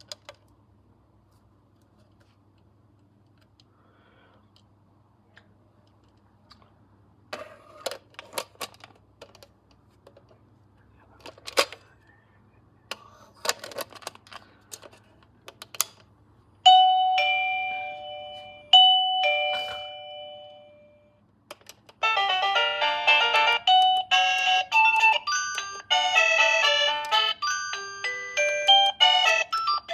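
Electronic doorbell: scattered clicks, then a two-tone ding-dong chime sounded twice about two seconds apart, each note dying away, then a longer, busier chime melody of many quick notes that starts about two-thirds of the way in and keeps going.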